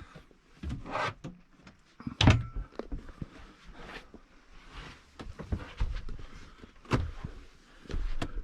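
Motorhome cupboard doors and catches being opened and shut: a series of clicks and knocks, the loudest about two seconds in.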